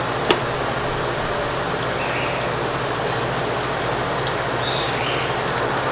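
One sharp knock of a cleaver chopping through a raw suckling pig carcass onto a wooden board, a moment after the start. A steady hiss and low hum of background noise runs underneath.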